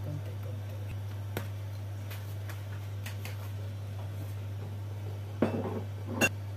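Kitchen handling sounds as a glass sauce bottle is picked up and brought over a plastic mixing bowl: a few faint clicks, then two louder clinks and knocks near the end. A steady low hum runs underneath.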